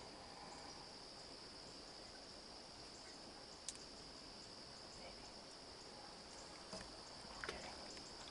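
Steady, faint, high-pitched chorus of night insects, with a few brief sharp clicks: one about three and a half seconds in and a small cluster near the end.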